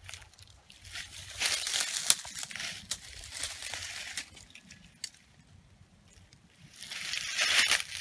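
Dry leaves and weedy brush rustling and crackling as something pushes through the undergrowth, in two spells: a longer one starting about a second in, and a shorter one near the end.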